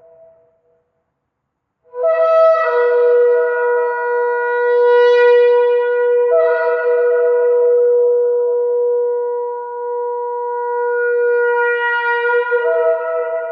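Shofar (ram's horn) blowing one long blast that starts about two seconds in after a brief silence, jumping back and forth between two notes a few times while it is held.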